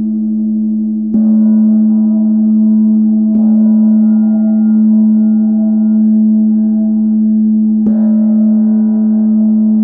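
Hand-forged Tibetan gong struck three times with a felt mallet: about a second in, a little over three seconds in, and near eight seconds. Each stroke renews a steady ringing hum whose overtones waver slowly.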